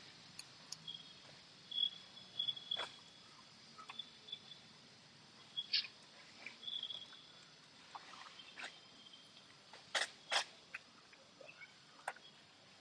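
Laptop keyboard being cleaned by hand: faint scattered clicks of keys and small knocks, with short high squeaks of rubbing over the keys.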